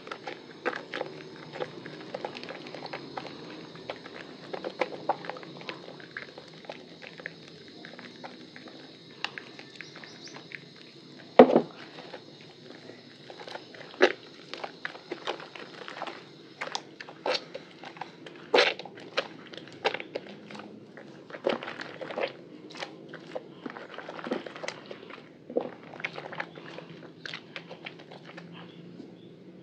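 A soaked bar of Lervia milk soap squeezed and kneaded by hand in a basin of soapy water, making irregular wet squelches and lather crackles, the loudest a little over a third of the way in.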